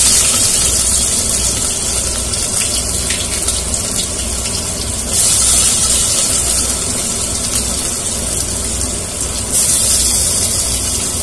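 Sliced onions sizzling as they fry in hot ghee and oil in a pressure cooker: a steady hiss that grows louder about five seconds in, over a low steady hum.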